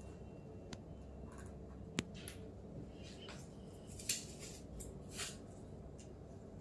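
Masking tape being pulled off its roll and torn: a few short, faint rips, the strongest about four and five seconds in, with a sharp tick about two seconds in.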